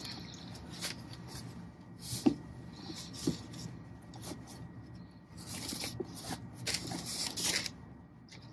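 Cotton drawstring dust bag and tissue paper rustling as a leather boot is slid out of the bag, with a few light taps and clicks, and a denser stretch of rustling late on.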